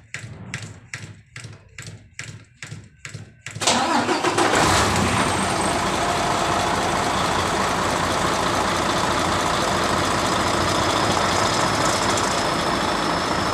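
Quiet, rhythmic strokes of a diesel fuel hand-priming pump, about two and a half a second. About three and a half seconds in, the Mercedes-Benz Actros 1841's V6 diesel catches and runs steadily. The misfire has been cured by a new fuel pump cover.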